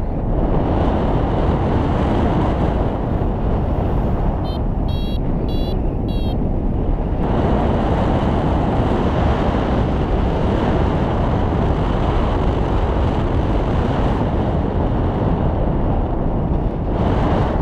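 Steady rush of wind buffeting the microphone of a paraglider's action camera in flight. About four and a half seconds in, a quick run of short high electronic beeps sounds for about two seconds, typical of a flight variometer signalling lift.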